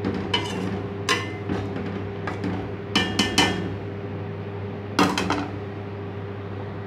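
Metal perforated ladle stirring and knocking against the sides of an aluminium cooking pot: a run of clinks and clanks with a short metallic ring, the loudest cluster about three seconds in and a last knock about five seconds in. A steady low hum runs underneath.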